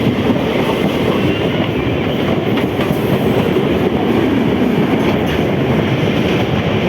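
Train running on the track: a steady, loud rumble of wheels on rails.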